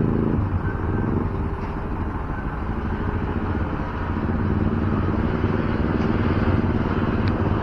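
Road traffic: vehicle engines running with a steady rumble. A steady pitched tone stops about half a second in.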